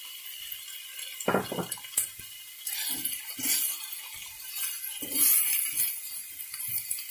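Spatula stirring chunks of meat and spices around a frying pan. Irregular scrapes and knocks start about a second in, over a faint steady hiss.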